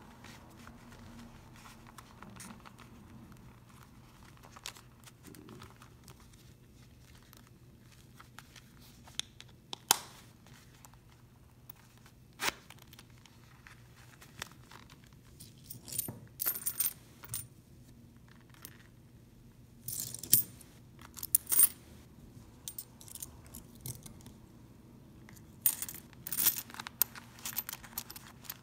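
Loose coins clinking as they are put into a small wallet's zippered coin pocket. A few single clicks come in the first half, then clusters of jingling in the second half as more coins go in.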